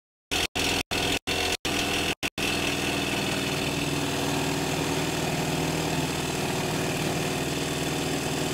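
DeWalt 20V cordless jigsaw with a Diablo metal-cutting blade sawing through 1/4-inch steel plate, a plate thicker than the blade is meant for. It runs steadily, broken by several short gaps in the first couple of seconds.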